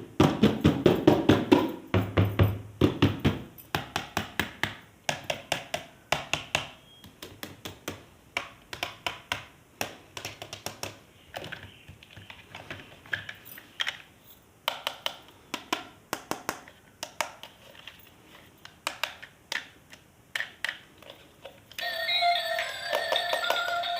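Plastic toys and packaging being handled: quick, irregular clicks and taps, busiest in the first few seconds. About two seconds before the end an electronic melody with wavering tones starts.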